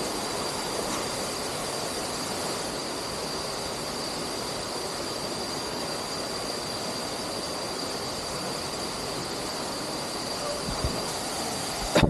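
Steady rush of falling water from a pool waterfall, with a thin, steady high-pitched tone over it.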